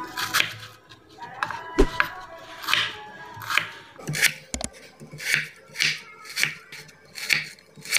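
Kitchen knife chopping an onion on a wooden cutting board: a steady series of sharp knife strokes, a little more than one a second.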